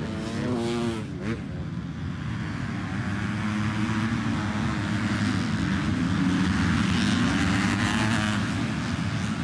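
Motocross bikes on the track, their engines revving up and down as they ride by. One quick rev rises and falls about a second in, then the engines build to their loudest between about six and eight seconds in before easing off.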